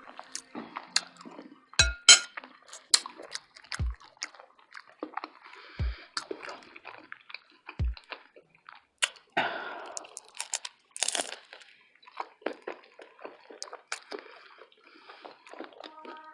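Close-miked chewing of a plant-based Philly steak burrito: irregular wet mouth smacks and crunchy bites, with a louder tearing crunch about nine seconds in.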